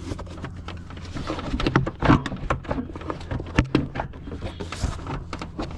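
Plastic air filter box cover being worked loose by hand: a run of irregular clicks, knocks and rattles of plastic, the loudest about two seconds in and again past three and a half seconds.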